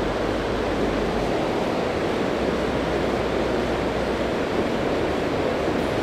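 Steady rush of river water pouring over a low rock dam.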